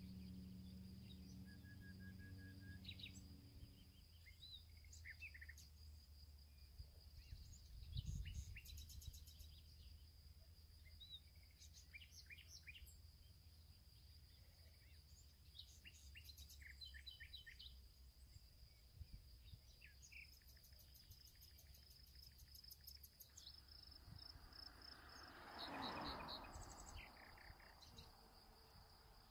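Faint outdoor ambience with small birds chirping on and off, over a steady high tone. A low hum fades out about four seconds in, there is a low thump about eight seconds in, and near the end a rush of noise swells and fades.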